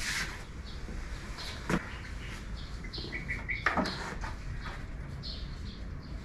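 Birds chirping in short repeated calls, with two sharp knocks about two seconds apart.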